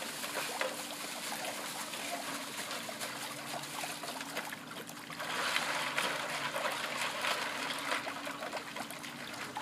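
Ice water trickling and splashing in a metal pail as a hand works in it, with many small clicks of ice; it grows louder about five seconds in. A faint steady hum runs underneath.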